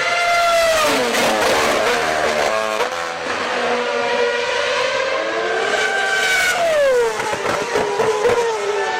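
Formula 1 car engine at high revs: its pitch drops steeply early on as it slows and shifts down, climbs back steadily under acceleration, then drops again a little after halfway.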